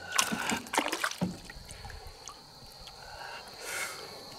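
Hooked black bass splashing and thrashing at the water's surface beside the boat as it is landed by hand: a quick run of splashes in the first second or so, then quieter water sounds.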